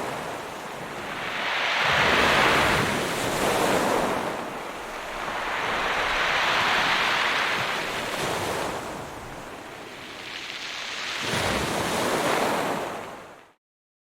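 Ocean surf: waves breaking on the shore in repeated surges of hissing wash, about four crashes, each swelling and ebbing. The sound fades away quickly near the end.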